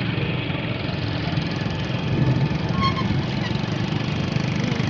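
Small motorcycle engine running steadily at low speed, heard from the bike itself as it rides along a dirt road.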